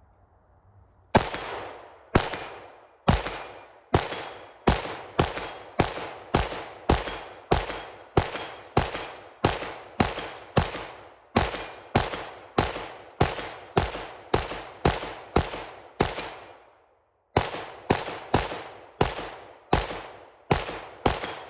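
PSA AK semi-automatic rifle fired rapidly, about two shots a second, some 35 shots in one long string with one short pause about two-thirds through.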